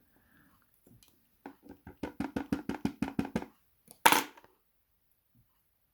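Lock parts being tapped and knocked while a dimple lock is stripped down: a quick run of about a dozen light taps, about six a second, then one sharp knock about four seconds in.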